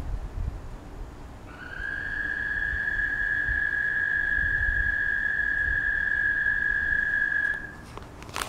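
A loud, unidentified backyard animal call, from a bug or a frog. It is one long, steady, high-pitched trill lasting about six seconds: it starts about a second and a half in and stops near the end. A brief click follows it.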